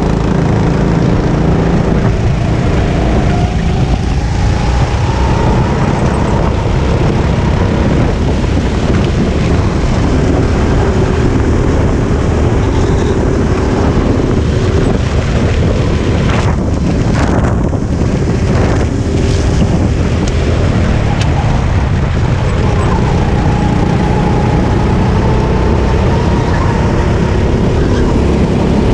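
Sodi RT8 rental kart's single-cylinder four-stroke engine running hard close under the onboard camera, its pitch rising and falling as the kart brakes into and accelerates out of corners. Wind noise on the microphone.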